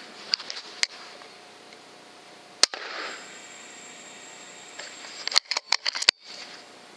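A single sharp crack of a pre-charged pneumatic air rifle shot about two and a half seconds in, with a short tail after it. A quick run of clicks and knocks follows a couple of seconds later.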